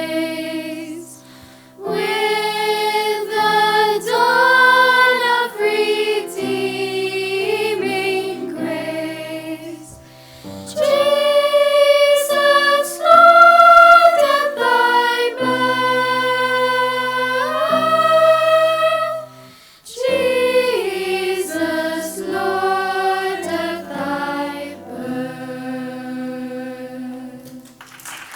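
A choir singing in sustained, held chords, the phrases broken by short pauses, coming to the end of a song near the close.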